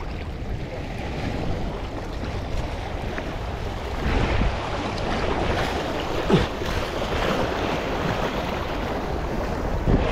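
Sea waves washing and surging over shoreline rocks, with wind buffeting the microphone; the surge grows louder about four seconds in.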